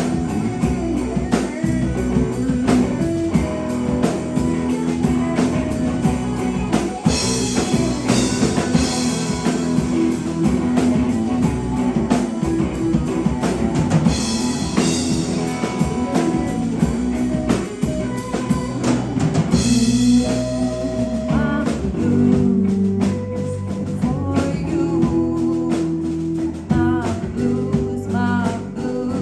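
Live rock band playing an instrumental passage, with electric guitars, bass guitar and drum kit.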